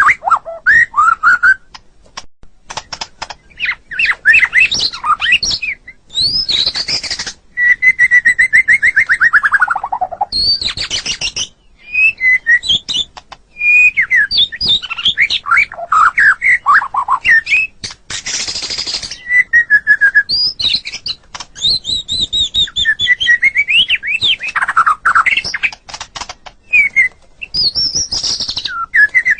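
White-rumped shama (murai batu) singing a long, varied song: clear whistled phrases with rising and falling glides, quick trills, and a few short harsh notes, with brief pauses between phrases.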